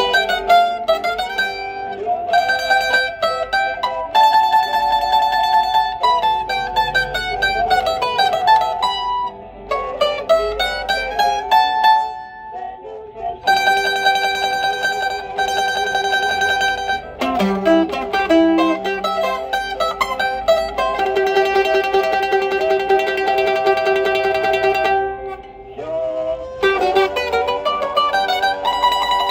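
Solo bowl-back (round-back) mandolin playing a single melody line of a hymn. It moves from quick runs of plucked notes to long notes picked rapidly, with a few short breaks.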